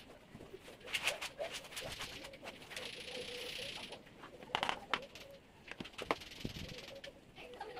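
Plastic cat litter box being handled on a tiled floor: pellet litter rustles and shifts, with a few sharp plastic clicks and knocks. A dove coos faintly in the background.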